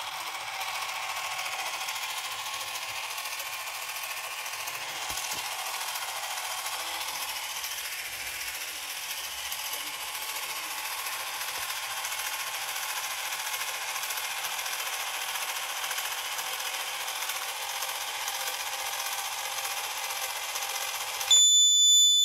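Small DC gear motors of an Arduino robot car running with a steady gritty whir as it drives. About a second before the end the motors stop and a piezo buzzer sounds a steady high beep: the anti-collision alarm going off as the ultrasonic sensor detects an obstacle.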